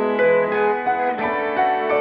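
Background music: gentle piano-led instrumental with notes changing every half second or so.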